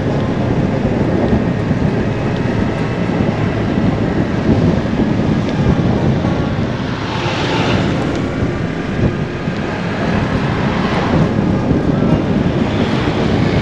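Wind rushing over the microphone of a moving Vespa scooter, with the scooter's engine running underneath. Louder hissing swells in the second half as oncoming vehicles pass.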